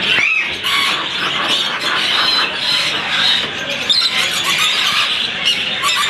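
Dense chattering and squealing of many caged parrots and small birds, with one falling squawk near the start.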